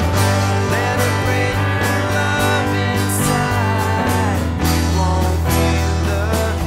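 Background rock music with guitar over a steady bass and drum beat.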